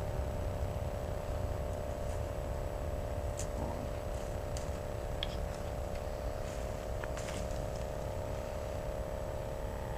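A steady mechanical hum, like an engine running at a constant speed, over a low rumble, with a few faint ticks.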